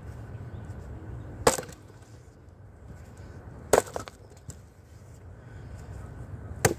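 Wooden-handled axe striking and splitting firewood on a chopping block: three sharp chops a couple of seconds apart, each with the crack of the wood splitting.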